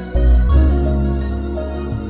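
Background music: a gentle keyboard tune over a deep bass note and a steady beat.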